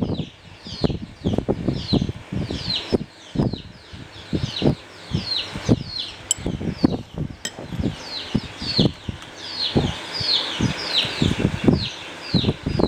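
Small birds chirping in a quick, continuous series of short falling chirps, with short low thumps and knocks among them.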